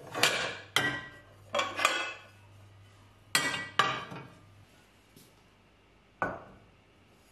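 Stacked black cooking pots clanking and ringing against each other as one is lifted out of the stack: several sharp clanks in the first four seconds. A single knock follows about six seconds in, as a pot is set down on the electric hob.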